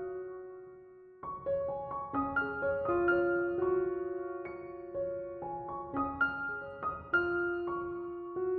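Background music: a slow solo piano playing gentle arpeggiated phrases of single ringing notes. It pauses briefly, and a new phrase starts about a second in.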